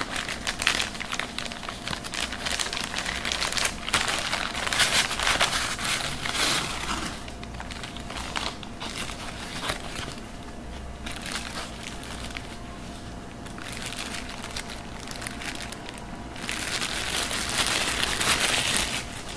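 Plastic packaging crinkling and rustling as a poly mailer envelope is opened and handled, in irregular bursts, loudest about four to seven seconds in. Near the end, a clear plastic bag crinkles loudly as the webcam inside it is unwrapped.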